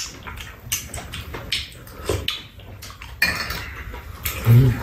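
Metal spoons clicking and scraping against ceramic bowls and a metal serving tray during a meal, with mouth noises of eating and a brief low sound near the end.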